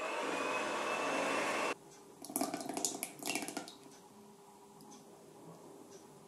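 Electric hand mixer running in cake batter with a slowly rising whine, cutting off abruptly just under two seconds in. It is followed by about a second of soft, uneven splashing as kefir is poured into the batter, then near quiet.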